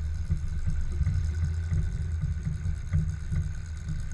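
Engine of a lifted, solid-axle-swapped Chevrolet S-10 ZR2 idling with a steady low rumble, picked up by a camera mounted on its hood.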